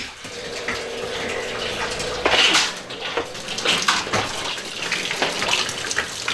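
Pressurised water running and splashing from a leak in newly plumbed PEX lines fed by a 12-volt SHURFLO diaphragm water pump, with the pump's steady hum during the first two seconds and a louder burst about two seconds in.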